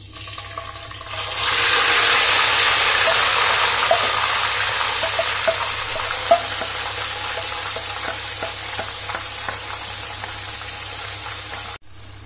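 Marinated chicken pieces tipped into hot mustard oil with whole spices, setting off loud sizzling that swells up about a second in and slowly dies down. A wooden spatula scrapes and knocks through it as the marinade is pushed out of the bowl.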